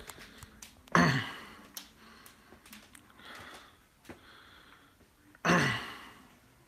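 A man's two loud breathy, voiced exhalations, each falling in pitch and fading over about half a second, about four and a half seconds apart, with a softer breath between them.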